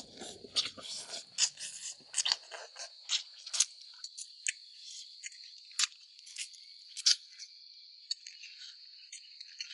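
Eating sounds: scattered short clicks and crunches of someone chewing and picking at cooked bullfrog, over a steady high chirring of insects.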